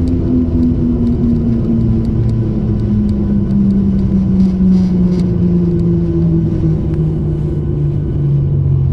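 Jet airliner engines and cabin noise heard from inside the cabin: a steady, loud rumble carrying a tone that slowly falls in pitch as the engines spool down while the plane rolls along the runway after landing.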